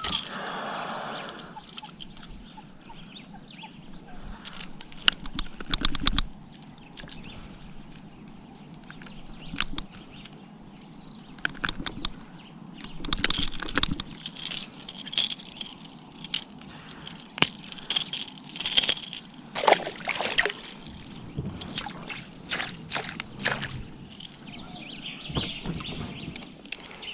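Water sloshing and splashing around a kayak, with scattered clicks and knocks from handling a caught peacock bass and its lure.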